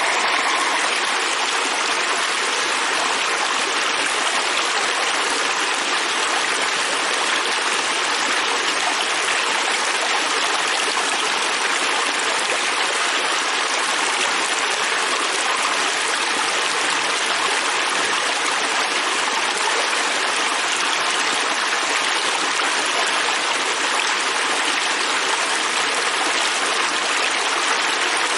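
Fast-flowing river stream: water rushing steadily over rocks, an even, unbroken hiss.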